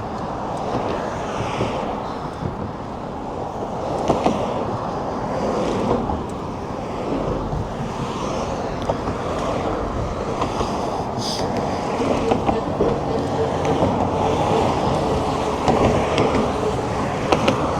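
Steady rush of wind over the microphone of a moving bicycle, mixed with road and traffic noise, with a few short knocks and rattles.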